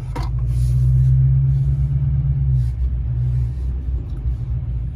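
Low, steady engine and road rumble heard inside the cab of a moving pickup truck, strongest for the first couple of seconds, then easing.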